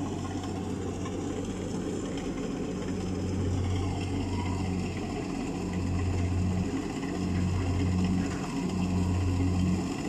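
Rice combine harvester's engine running at work in the field. It makes a steady low hum that swells and eases in level every second or so in the second half.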